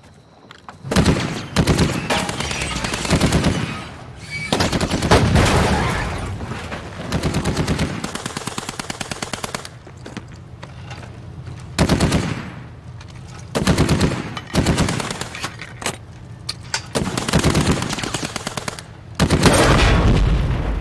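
Battle gunfire: repeated bursts of rapid automatic weapon fire, one run of shots after another, with the heaviest, loudest burst near the end.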